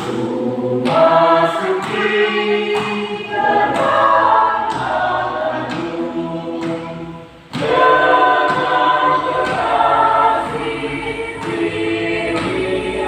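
Choir rehearsing, several voices singing together in sustained notes; the singing breaks off briefly about seven and a half seconds in, then starts again.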